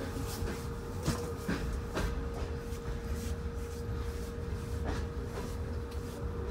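Tver-built sleeping car (model 61-4179) rolling slowly into a station, heard from inside the compartment: a low rumble with a steady hum and a few irregular sharp clicks of the wheels over rail joints and points.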